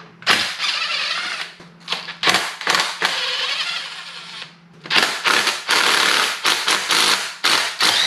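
Cordless impact wrench hammering in several runs, a few seconds of rapid rattling impacts broken by short pauses, ending in a string of quick trigger bursts. It is loosening the bolts of an automatic transmission's oil pan.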